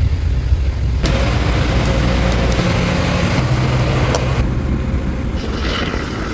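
Fishing boat engine running with a low rumble under wind and sea noise. The sound changes abruptly a few times as short clips cut from one to the next.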